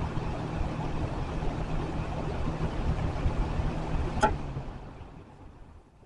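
Lakewood adjustable box fan running, a steady rush of air over a low motor hum. A little past four seconds in a sharp click comes, the hum stops, and the air noise dies away as the blades coast down: the fan has been switched off.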